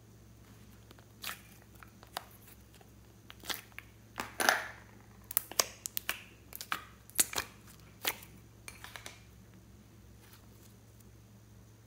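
Slime being pressed and worked by hand, giving irregular sharp clicks and short sticky crackles, with a brief longer crackle about four seconds in.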